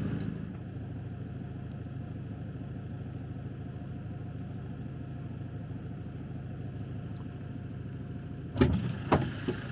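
Motorhome engine idling steadily with a low hum, then a few sharp knocks near the end.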